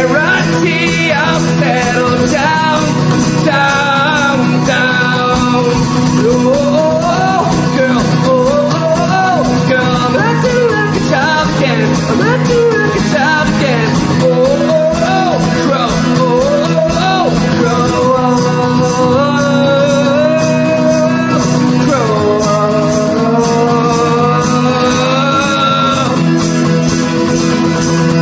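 A man sings a folk song, accompanying himself on a strummed acoustic guitar.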